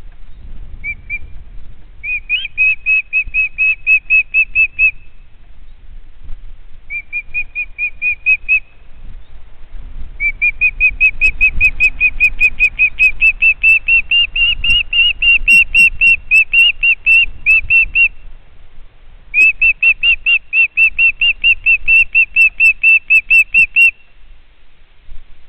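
A bird calling in runs of short, high, whistled notes, about six or seven a second. Each run lasts a few seconds, with the longest, about eight seconds, near the middle, and short pauses in between.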